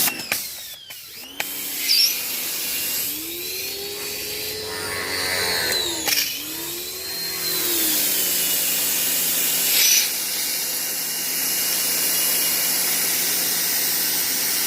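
Portland electric pressure washer motor starting and stopping a few times, then running with its pitch rising and falling before settling into a steady whine over the hiss of the spray.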